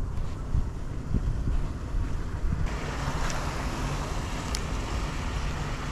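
Wind buffeting the microphone: a gusty low rumble, with a wider hiss coming up about halfway through and a single sharp click shortly after.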